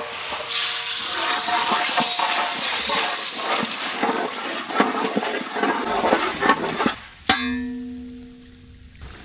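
Popcorn kernels sizzling loudly as they hit hot oil and butter in a large metal pot, then a ladle scraping and clicking through them. About seven seconds in, a single metal clank rings on and fades away.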